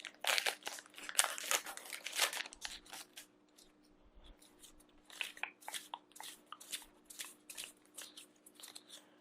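Foil booster-pack wrapper being torn open and crinkled by hand: a dense burst of tearing and crackling in the first two seconds or so, then scattered crinkles and small clicks.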